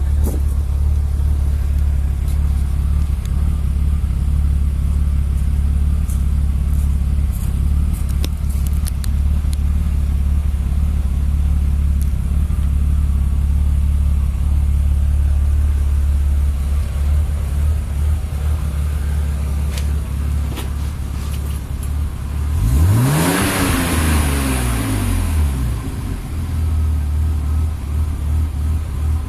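BMW E36 325i 2.5-litre straight-six idling with a steady low drone and a slight wobble in its idle, the symptom its owner traced to a faulty O2 sensor. About 23 seconds in the engine is blipped once: it revs up and falls back to idle over about three seconds.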